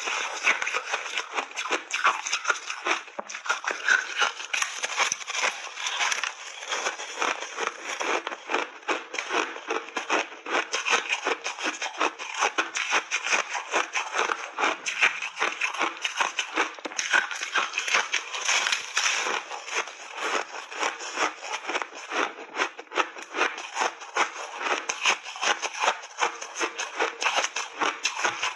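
Someone chewing refrozen mixed berries and chunks of ice: a steady, dense run of crunches and cracks, many to the second.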